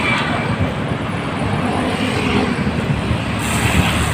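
Steady road traffic noise with wind rumble on the microphone, heard from a moving bicycle. A brief high hiss comes in near the end.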